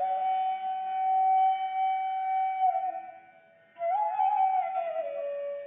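Background music: a solo flute playing long held notes. The first note is held a couple of seconds and slides down; after a short pause a second phrase rises, then falls to a lower held note.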